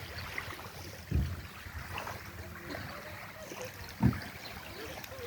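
Beach ambience: a steady wash of wind and water, broken by two low thumps, about a second in and about four seconds in.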